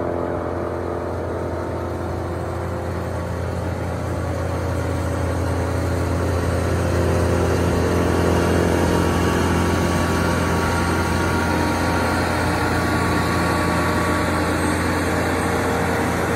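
Morbark Hurricane 18 brush chipper running at a steady engine hum, growing a little louder about six seconds in.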